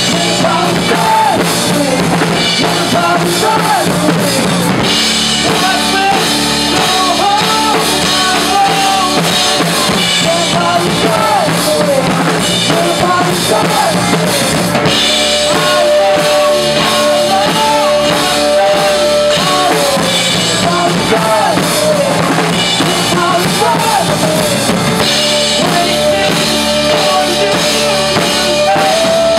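Live rock band playing: drum kit, electric bass and electric guitar, with sung vocals. A long held note comes twice in the second half.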